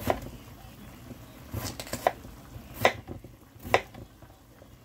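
Kitchen knife cutting a potato on a cutting board, the blade knocking on the board about five times at uneven intervals.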